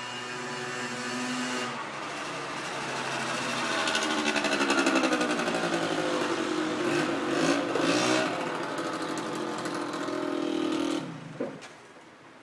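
A motor vehicle's engine passing by. It grows louder to a peak around the middle, its pitch bending, then stops sharply about eleven seconds in.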